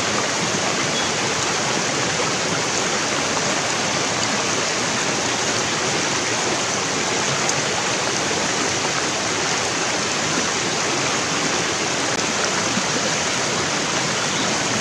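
Shallow stream rushing over rocks: a steady rush of water.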